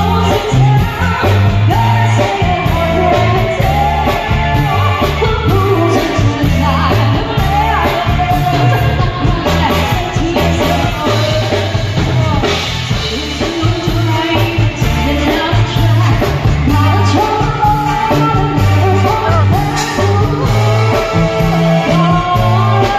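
Live band playing loud, upbeat music through PA speakers: a singer over electric guitar and a steady, stepping bass line.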